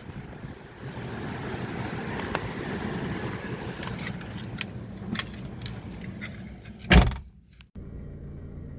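Strong wind buffeting the microphone over rough surf. About seven seconds in, a car door shuts with a loud thump and the wind noise cuts out, leaving the steady low hum of the car's idling engine heard from inside the cabin.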